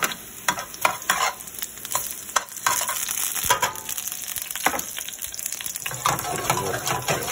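Sliced garlic frying in hot olive oil in a pan: a steady sizzle with frequent, irregular crackling pops.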